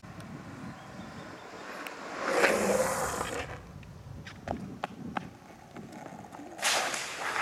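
Longboard wheels rolling over asphalt, with a few sharp clacks about four to five seconds in and two loud scraping rushes, the second near the end as the rider bails and the board runs away on its own.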